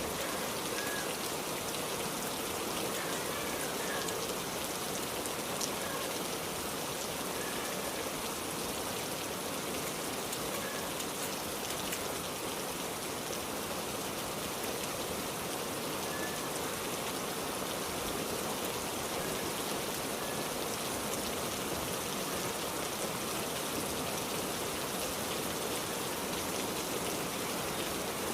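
Heavy rain falling steadily, a continuous even hiss of drops on surfaces.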